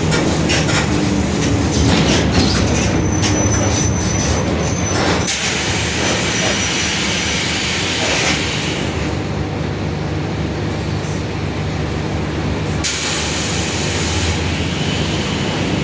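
A Mercedes-Benz OF-1721 city bus under way, its differential droning very loudly over the running noise, with rattling in the first few seconds.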